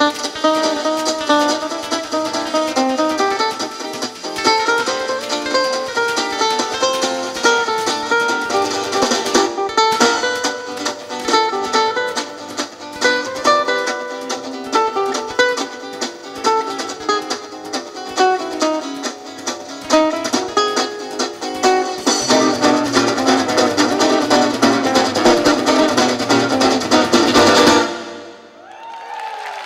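Instrumental music on two acoustic guitars with light percussion, a busy plucked melody over picked chords. The music stops sharply near the end.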